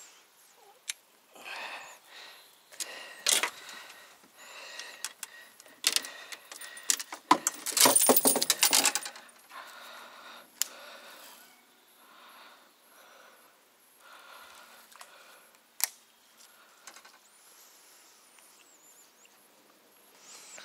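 Fishing tackle being handled: scattered clicks and light metallic rattles, with a louder two-second burst of dense rattling about halfway through.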